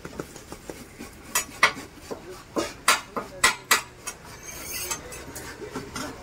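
Metal cooking utensils clanking at a street-food griddle: a run of sharp metal strikes and clatters, thickest through the middle.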